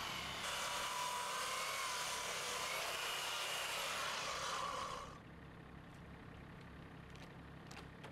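Chainsaw running at full throttle with a steady, slightly wavering whine as it rips lengthwise through a log in a chainsaw mill. It cuts off about five seconds in, leaving a faint background with a few light clicks.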